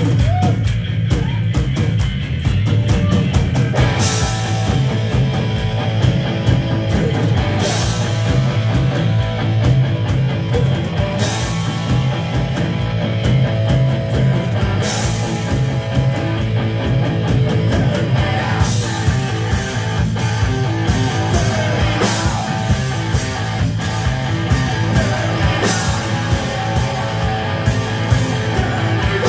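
Live hard rock band playing loud: distorted electric guitars, bass guitar and a drum kit driving a fast beat, with a cymbal crash every few seconds.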